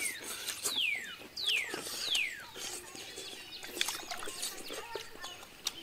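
A bird's clear whistled calls, each sliding down in pitch over about half a second, four in the first two and a half seconds. Sharp clicks and lip smacks from people chewing are scattered throughout.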